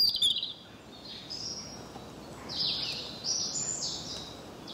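Birds calling: a series of short, high chirps, some sliding downward, repeating every second or so over faint background noise. There is a brief click at the very start.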